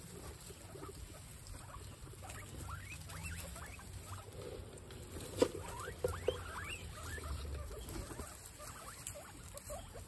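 A herd of guinea pigs eating fresh grass: steady munching and rustling in the straw, with many short rising squeaks scattered through it. A few sharp clicks about five and six seconds in are the loudest sounds. A low wind rumble runs underneath on the microphone.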